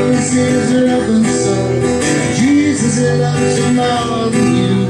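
Background music led by a plucked acoustic guitar, playing steadily.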